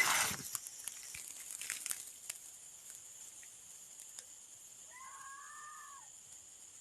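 A cat meowing once, a single drawn-out call about five seconds in, over a steady high-pitched hiss. A brief noisy burst sounds at the very start.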